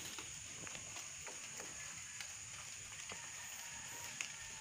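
Faint, scattered clicks from the small metal and plastic parts of a motorcycle's throttle grip housing as the throttle cable end is fitted, over a steady high hiss.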